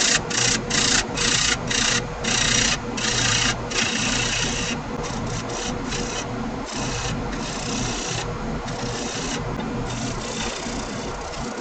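Turning tool cutting laminated wood spinning on a wood lathe: short hissing cuts in quick succession, then longer, steadier cuts, over a faint steady hum.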